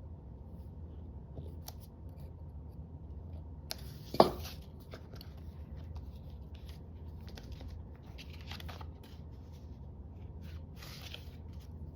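Paper and craft tools handled on a work table: faint scrapes and rustles, with one sharp click about four seconds in.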